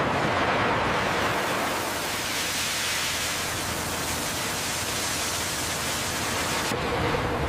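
Steady rushing hiss of water jets spraying onto glowing hot steel blocks and flashing to steam, easing slightly near the end.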